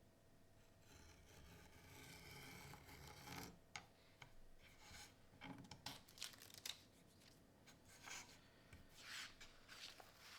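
Faint scissors cutting printer paper along the template lines, with the sheets rustling as they are handled: a soft rustle at first, then a run of short, irregular snips.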